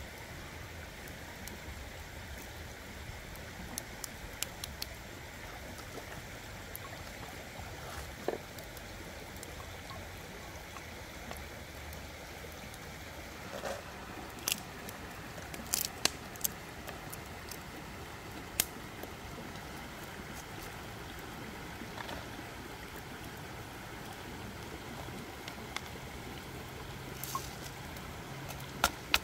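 A river flowing steadily over stones, with scattered sharp clicks and taps.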